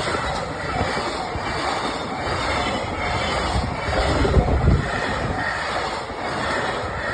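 Freight train of Koki container flatcars rolling past at close range: steel wheels running on the rails make a steady heavy rumble, which swells briefly about four seconds in.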